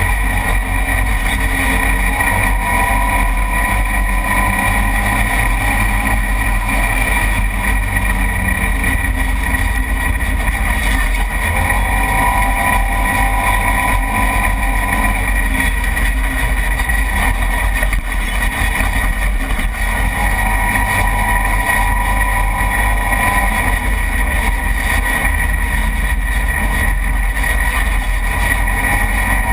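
Side-by-side UTV driving fast on a dirt road, its engine running steadily under load, picked up by a camera mounted on the vehicle with a constant wind rumble over the microphone.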